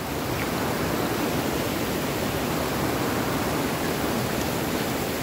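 Steady rushing of a fast river tumbling over boulders, with rain falling.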